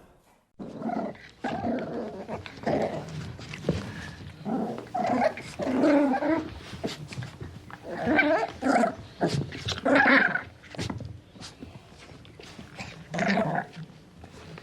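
An animal growling and giving short calls in irregular bouts, with scattered sharp clicks between them.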